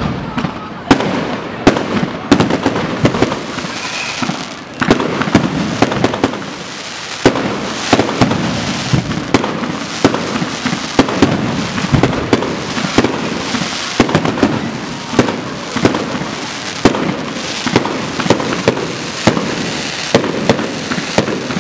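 Fireworks display: aerial shells bursting overhead with irregular, repeated sharp bangs and crackling, often several close together.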